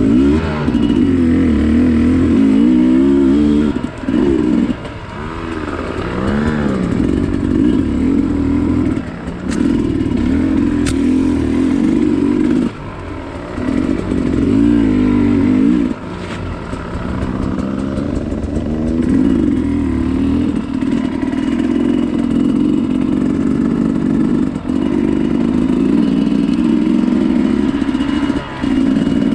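Dirt bike engine under way, revving up and easing off again and again, its pitch rising and falling with the throttle and dropping briefly a few times. There are two sharp ticks around ten seconds in.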